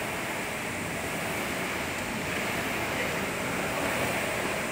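Steady rushing background noise with no distinct knocks or voices.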